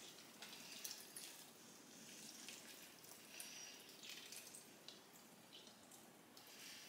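Faint dripping and small squelches of water as soaked bread rolls are squeezed out by gloved hands, with scattered soft ticks.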